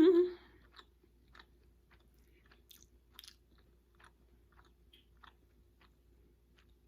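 A person chewing a mouthful of salmon and rice close to the microphone: faint, scattered mouth clicks and smacks. It comes after a short voiced sound from the eater that ends under half a second in.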